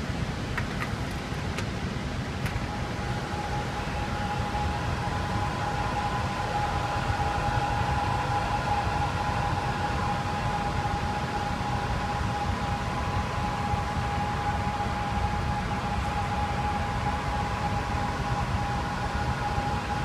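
Steady machine-room noise of HVAC fans running on variable frequency drives, with a whine held on one pitch throughout.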